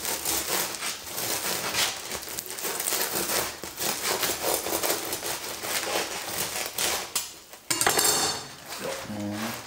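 Serrated bread knife sawing lengthwise through a crisp-crusted spelt baguette on a wooden cutting board: many quick strokes with the crust crackling. The cutting stops about seven and a half seconds in, and a short crunch follows as the cut halves are pulled apart.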